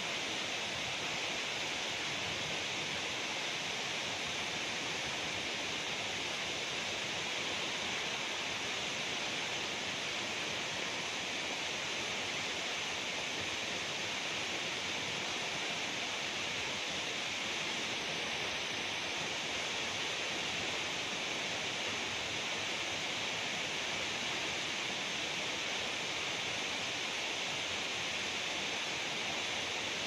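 Waterfall plunging down a rock face onto boulders: a steady, even rush of falling water with a bright hiss.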